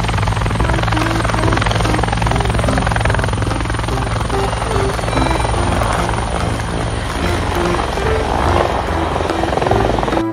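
Helicopter sound effect: a steady rotor and engine noise with a rapid flutter that starts and cuts off abruptly, with a children's tune playing underneath.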